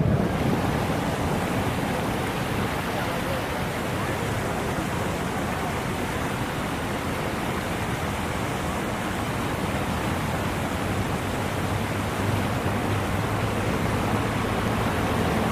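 Outdoor ambience of an open city square: a steady rushing noise with faint voices of people.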